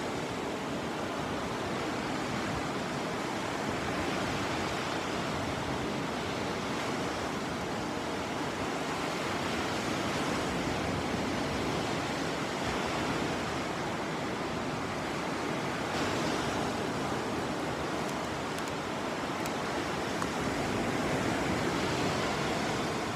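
Sea surf washing steadily onto the beach, an even hiss of breaking waves that swells a little now and then.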